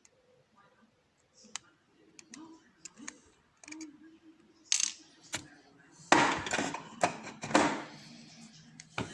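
Small metal lock parts clicking and rattling as a picked lock is taken apart: a few light clicks at first, then a busier run of louder clicks and rattling from about five seconds in.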